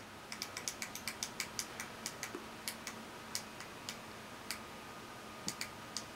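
Sharp little plastic clicks at irregular intervals, several a second at first, then sparser, with a pair near the end: the push switch of a handheld LED cat-teaser light toy being pressed on and off.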